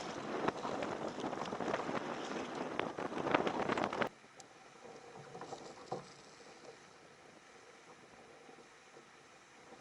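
Water splashing and lapping against a fishing kayak's hull: a dense crackling patter of small splashes that stops suddenly about four seconds in, leaving faint ticks and water noise.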